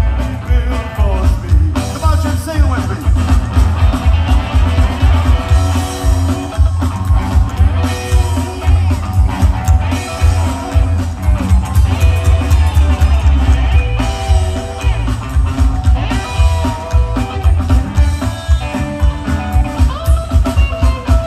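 Live rockabilly trio playing: electric guitar, upright bass and drums, driven by a steady beat.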